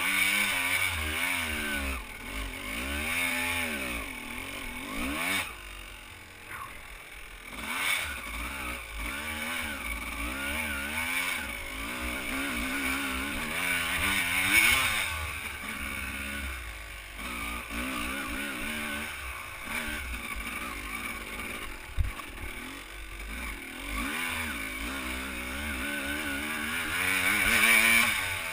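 Enduro dirt bike engine revving up and down over and over, its pitch rising and falling with the throttle as the bike works along rough trail, with a few louder surges and one sharp knock.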